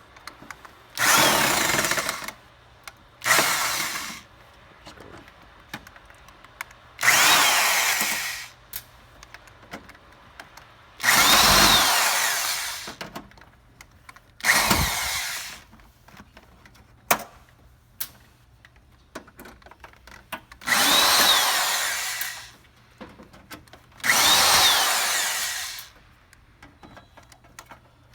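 Power drill-driver unscrewing the screws along the bottom edge of an ice maker's panel, in seven short runs of about one to two seconds each. The motor's pitch rises and falls within each run as each screw is backed out.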